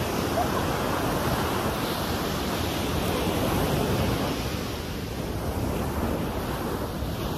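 Ocean surf breaking and washing up the beach in a steady rush, swelling a couple of seconds in and easing a little toward the end, with wind buffeting the microphone.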